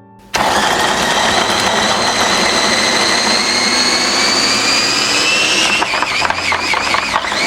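Electric blender motor chopping ginger. It switches on abruptly about half a second in, and its whine rises steadily in pitch, then wavers up and down over the last couple of seconds and begins to wind down at the very end.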